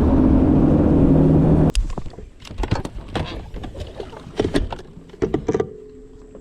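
Boat motor running with a steady hum that cuts off abruptly about two seconds in, followed by scattered clicks and knocks.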